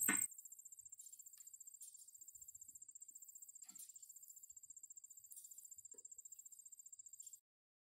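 Insects trilling: a steady, high, fast-pulsing trill, with a few faint knocks. It stops abruptly near the end.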